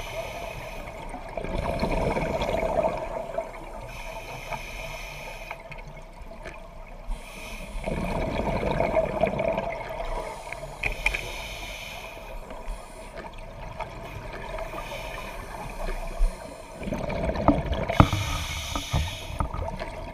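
Scuba diver breathing through a regulator underwater: hissing inhalations alternate with rushes of exhaled bubbles. The bubble rushes, the loudest parts, come three times, about eight seconds apart.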